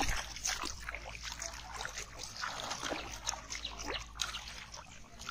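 Shallow pond water splashing and sloshing in irregular bursts as a barefoot child wades and grabs at fish by hand, the splashes thinning out near the end.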